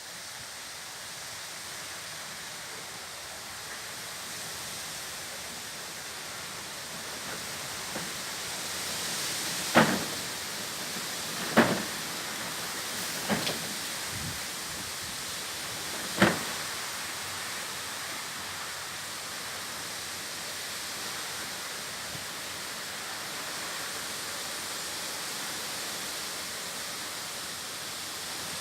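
Wind blowing with a steady rushing noise that swells a little near the middle. Four sharp knocks stand out between about a third and halfway through.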